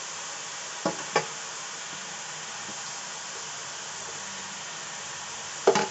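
Grated carrots sizzling in hot ghee in an aluminium kadhai: a steady hiss. A metal spoon knocks on the pan twice about a second in and several times near the end.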